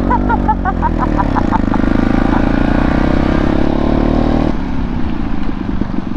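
Off-road motorcycle engine running while riding, a steady drone with wind and tyre noise. About four and a half seconds in the engine note drops as the throttle eases off.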